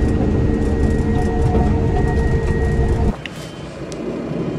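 Merlo telehandler engine running steadily, heard loud from inside the cab as it drives across the field. About three seconds in it cuts abruptly to the machine idling more quietly, heard from outside, with a sharp click just after.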